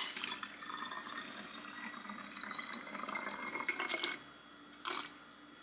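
Herbal apple cider vinegar rinse pouring in a thin stream into a plastic bottle. The pour stops abruptly about four seconds in, and a single short tap follows.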